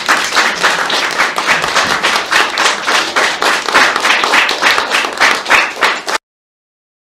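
Audience applauding, a dense run of clapping that cuts off suddenly about six seconds in.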